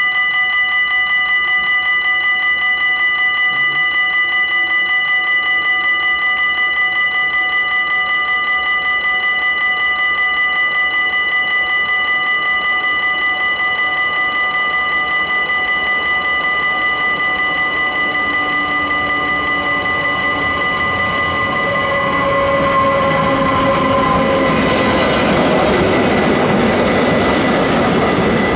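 Level crossing warning bell ringing as a steady, rapidly pulsing tone. From about twenty seconds in, a class 189 electric locomotive's approaching freight train grows louder. Near the end, covered freight wagons rumble and clatter past close by.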